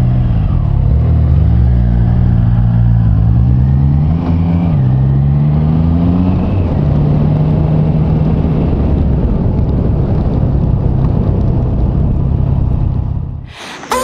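Triumph Trident 660's inline three-cylinder engine pulling up through the gears: the pitch climbs and drops back at each of about three upshifts, then holds steady at cruising speed. Heavy wind rush on the microphone runs underneath throughout.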